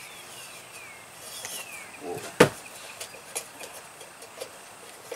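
Hands working the top of a metal-and-glass porch lantern: one sharp click about halfway through, followed by a few lighter taps. Two short falling whistles sound in the first two seconds.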